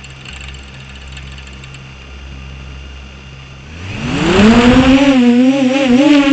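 Six-inch FPV quadcopter's brushless motors (2407 1850KV on 6S, with three-blade props) idling with a low hum, then spooling up at about four seconds into a loud rising whine as the quad lifts off. The pitch then holds high and wavers with small throttle changes.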